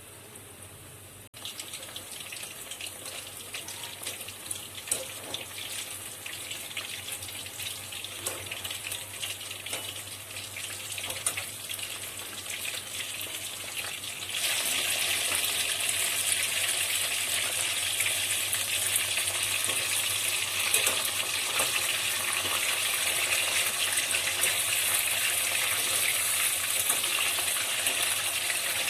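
Food frying in hot oil in a pan: a sizzle with scattered crackles that jumps to a louder, steady sizzle about halfway through.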